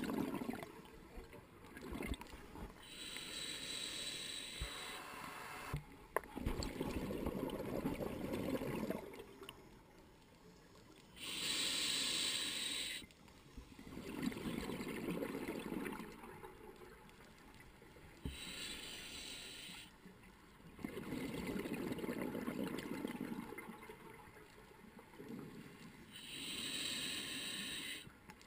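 Scuba diver breathing through a regulator underwater: a hissing inhale, then a longer burst of bubbling exhaust, repeating about every seven to eight seconds, four breaths in all.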